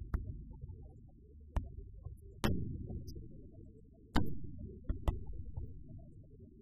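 Aerial fireworks shells bursting: about six sharp bangs, each trailing off in a low rolling echo, the loudest about two and a half and four seconds in.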